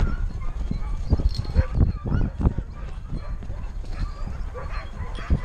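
A puppy's paws thudding on a dirt path as she trots, picked up by a camera strapped to her back, with irregular bumps and rubbing of the harness mount.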